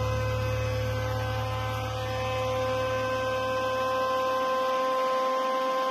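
A steady electrical hum, with a low rumble beneath it that dies away about four and a half seconds in as the Jaipan 850 W mixer grinder's motor comes to rest.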